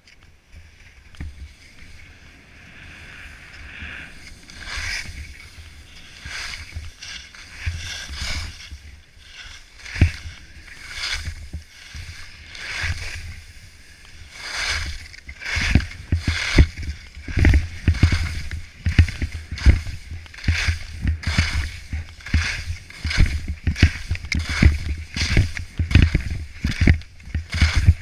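Skis scraping and carving through packed snow in repeated quick turns on a mogul run, each turn a swish, with low thumps as the skis hit the bumps. The turns get louder and more regular about halfway through, roughly one a second.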